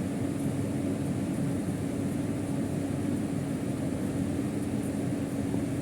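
Steady low hum with one constant tone and a faint hiss above it, unchanging throughout.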